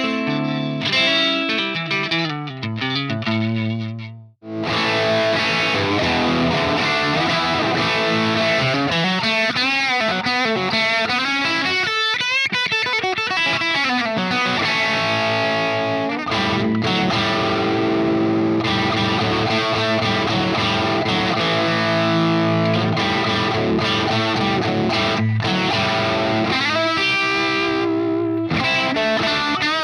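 Distorted electric guitar played through a 1974 Marshall JMP Super Bass valve amp, with a short break about four seconds in. Its notes waver in pitch midway through.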